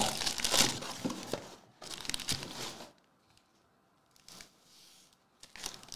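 Cardboard trading-card box being opened and its foil-wrapped packs handled: tearing and crinkling for about three seconds, then only a few faint rustles.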